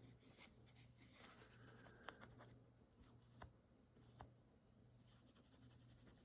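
Faint rubbing of a cloth wiping down a knife part, with a few light ticks scattered through.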